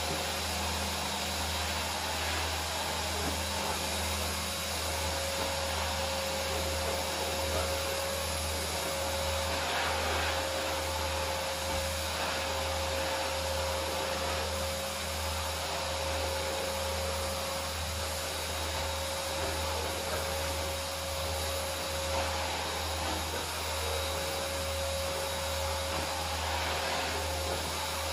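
Canister vacuum cleaner running steadily as its floor nozzle is pushed over a wooden floor: a rushing suction hiss with a constant high motor whine.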